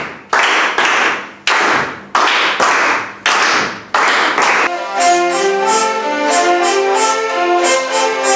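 A group of people clapping in a steady rhythm, about two claps a second. About four and a half seconds in, several hurdy-gurdies start playing a tune together over their sustained drones, with a regular rhythmic pulse.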